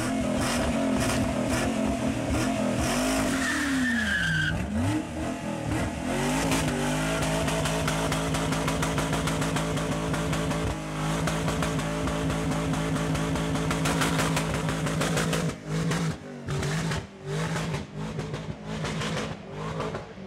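Ford Mustang GT's V8 revved hard, rising and falling for the first few seconds, then held at a steady high pitch on the rev limiter for about ten seconds while the clutch slips instead of spinning the tyres. Near the end the engine cuts in and out repeatedly as the car pulls away.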